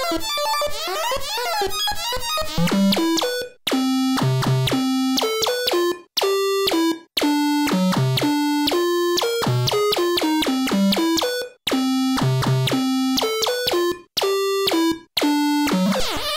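ymVST software synthesizer emulating 1980s sound-chip tones, playing a preset. It opens with quick bleeping pitch sweeps up and down. From about three seconds in comes a repeating pattern of short chip-style notes over a low bass note, with brief gaps between phrases. Just before the end a new sound comes in with falling sweeps.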